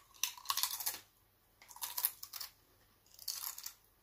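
A Doritos tortilla chip being crunched and chewed, in three short spells of crunching.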